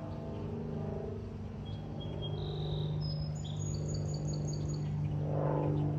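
Propeller aircraft droning overhead, a steady low hum that slowly grows louder. A bird chirps in a quick series of short high notes from about two to five seconds in.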